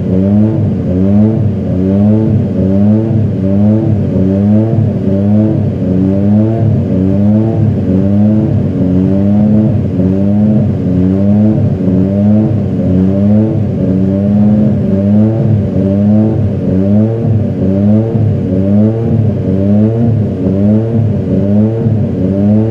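McLaren MP4/2's TAG-Porsche 1.5-litre turbocharged V6 Formula One engine running stationary and being blipped repeatedly, its pitch rising and falling over and over in quick revs.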